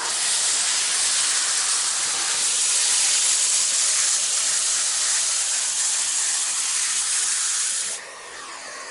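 Vacuum cleaner running: a loud, steady rushing hiss of suction airflow. About eight seconds in it drops suddenly to a quieter, shifting whoosh.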